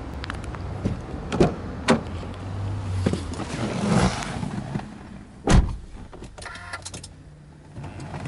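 Driver's door of a Subaru Impreza WRX STI opened and someone climbing into the seat, with latch clicks and rustling, then the door shut with a solid thump about five and a half seconds in. A quick run of light ticks follows.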